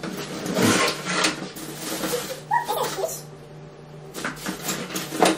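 Cardboard box and packaging rustling and scraping as an air fryer is worked out of its box, busiest at the start and again near the end, with a few short squeaks in between. A steady low hum runs underneath.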